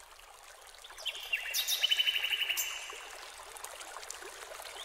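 Nature recording of running water, a steady hiss, with a few short bird chirps and a fast trill about two seconds in.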